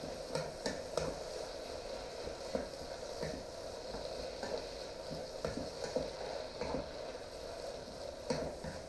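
Chopped vegetables sizzling quietly in a frying pan as a wooden spoon stirs them, with occasional light scrapes and taps of the spoon on the pan.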